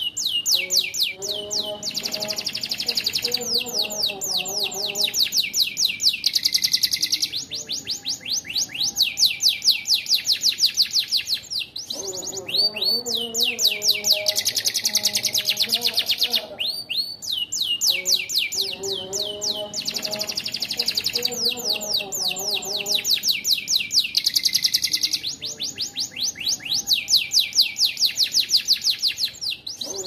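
A domestic canary singing a long song of fast, repeated trilled notes, with short breaks every few seconds; its song includes phrases learned from the bar-winged prinia (ciblek).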